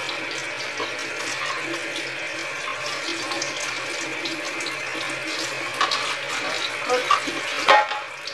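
Kitchen tap running steadily into a stainless steel sink as a metal box grater is rinsed under the stream. Near the end there are a few sharp clinks and knocks, the loudest just before it ends.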